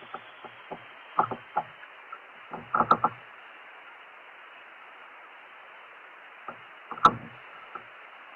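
Scattered dull knocks and clicks of fishing tackle being handled in a kayak, over a steady hiss, muffled by a waterproof action-camera case. A quick cluster comes about three seconds in, and the loudest single knock about seven seconds in.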